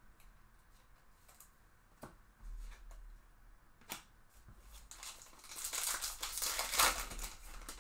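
A few light clicks and taps, then a trading card pack's foil wrapper being torn open and crinkled, loudest for about two seconds near the end.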